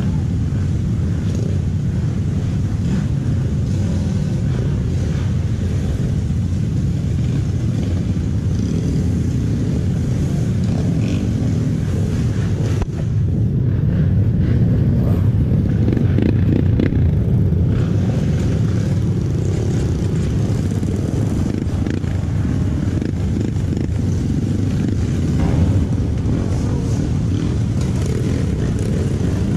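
Off-road trail motorcycle running steadily with a heavy low rumble, a little louder for a few seconds about halfway through.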